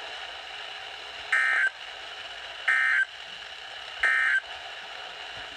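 Three short bursts of Emergency Alert System SAME data tone, the end-of-message (EOM) signal that closes an alert. Each burst is a harsh digital warble about a third of a second long, about a second apart, over steady radio hiss.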